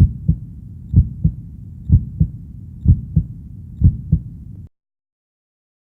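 Heartbeat sound: five low double thumps, lub-dub, about one a second, then it cuts off suddenly.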